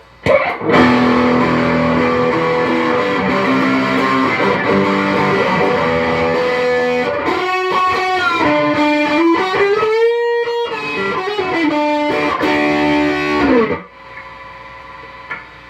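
Electric guitar with single-coil pickups, played on its neck pickup through an overdrive pedal. Held notes give way to bent notes that slide up and down in pitch around the middle, and the playing stops about two seconds before the end.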